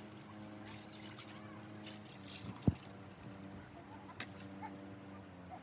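A single sharp knock a little before halfway, with a lighter one later, over faint clucking of chickens.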